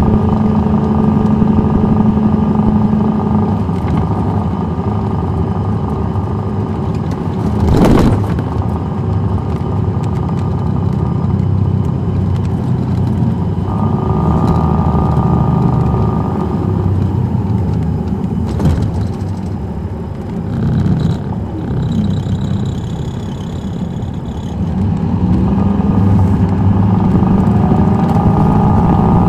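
Caterpillar C13 ACERT diesel of a 2007 MCI D4500CL coach heard from inside the bus, its engine speed stepping up and down as it drives. A sharp thump about eight seconds in, the loudest moment, and another just past halfway. The engine pulls up again, rising in pitch, near the end.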